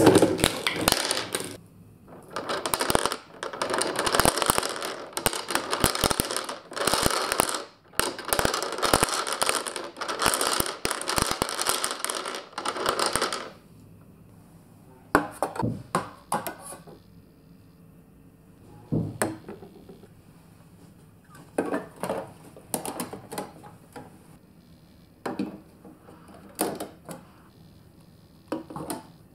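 Glass marbles clattering down a plastic spiral slide and knocking against a heap of other marbles, a dense run of clicks for about the first half. It stops suddenly, leaving only scattered single clicks and knocks.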